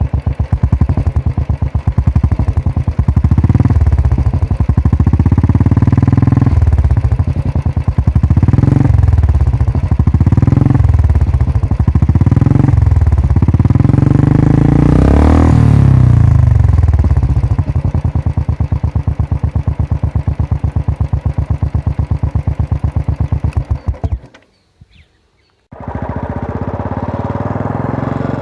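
Royal Enfield Classic 350 single-cylinder engine running through an aftermarket Sans Fatboy exhaust, with a series of throttle blips that rise and fall, then a steady thumping idle. The sound cuts out for about a second near the end, then the idle resumes.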